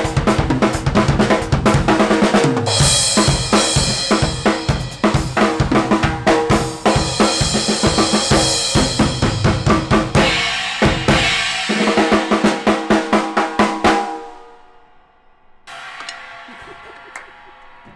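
Acoustic drum kit played: kick drum, snare and toms in a fast groove with crash cymbals washing over it twice. The playing stops abruptly about fourteen seconds in, leaving only a faint ring.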